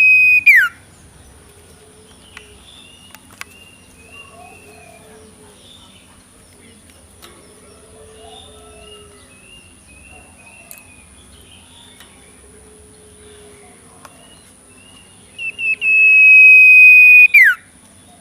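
Young sirtu owlet giving soft, repeated short chirping calls with lower notes between them. The tail of a loud whistle drops away at the very start, and about 15 seconds in a loud, steady high whistle follows a few short blips, is held about two seconds, then ends in a sharp downward glide.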